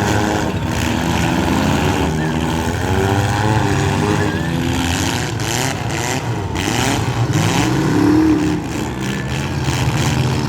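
Several demolition-derby street stock car engines revving at once, their pitches rising and falling over one another as the cars drive and ram, with a few short knocks in the second half.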